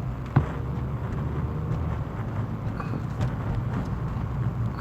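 Car driving, heard from inside the cabin: a steady low rumble of engine and road noise, with a sharp knock about half a second in.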